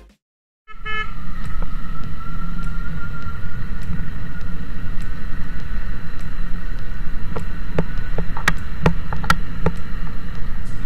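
Motorcycle running along a road, its engine and wind and road noise picked up by a camera mounted on the bike, starting about a second in after a moment of silence. A few sharp clicks or knocks come near the end.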